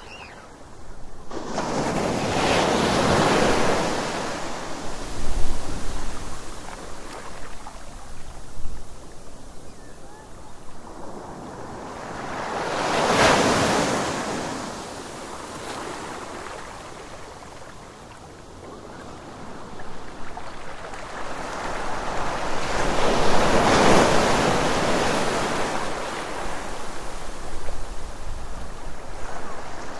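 Ocean surf on a beach: waves breaking and washing in, in three big surges (about a second in, about halfway through, and through much of the last third), with a quieter rushing wash between them.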